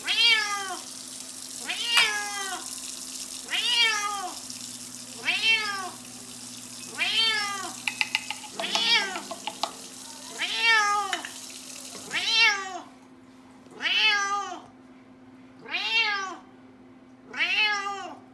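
Bengal cat meowing over and over, about ten drawn-out meows, each rising then falling in pitch, repeated roughly every second and a half to two seconds. A steady hiss underneath stops about two-thirds of the way through.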